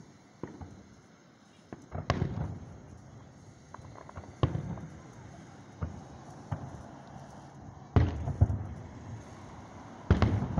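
Aerial firework shells bursting at a distance: a string of booms, each with a rumbling echo, with a quick cluster about two seconds in and the loudest bangs near the end.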